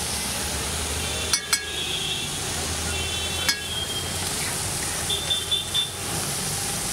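A metal utensil clinking against a metal cooking pan: two sharp strikes about a second in, another near the middle and a quick cluster of three near the end, several with a brief metallic ring, over a steady hiss of frying.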